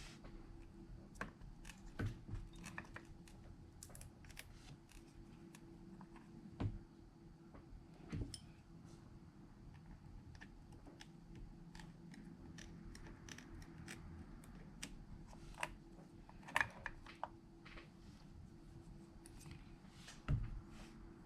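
Scattered light clicks and taps of small repair tools against phone parts, with a few louder knocks, over a faint steady hum.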